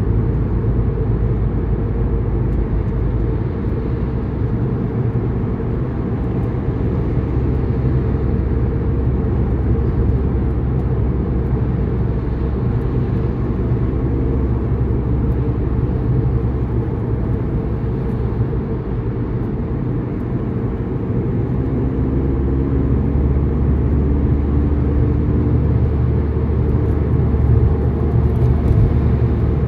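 Car being driven: a steady, low rumble of engine and road noise with little high-pitched sound. The deepest part of the rumble drops back about three seconds in and comes back stronger about two-thirds of the way through.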